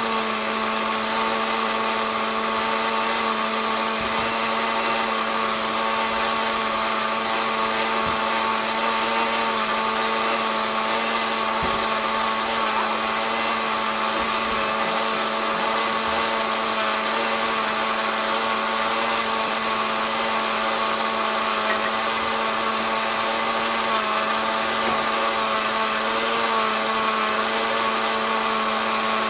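Kitchen blender running at a steady speed with an even motor hum, blending the batter for no-knead blender bread.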